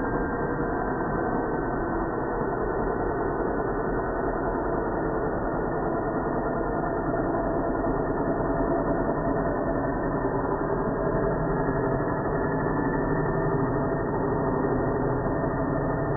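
Angle grinder grinding steel, its sound slowed down and lowered in pitch by slow-motion playback into a steady low drone with nothing above the low and middle range.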